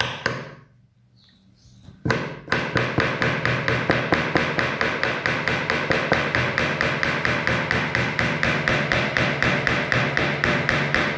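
Small hammer driving tiny nails through canvas into a wooden frame. One knock at the start, a short pause, then from about two seconds in rapid, even light taps at roughly five a second.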